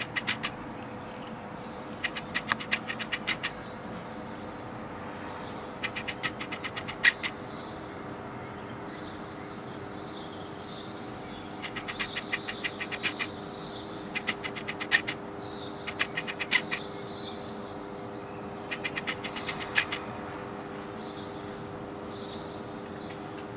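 Eurasian magpie chattering: bursts of rapid rattling calls about a second long, repeated seven times with softer higher notes between them, over a steady low hum.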